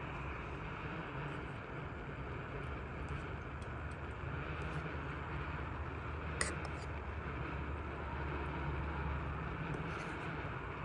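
Steady low rumble and hiss of distant road traffic. A spoon clicks once, sharply, against the metal camping pot a little past halfway.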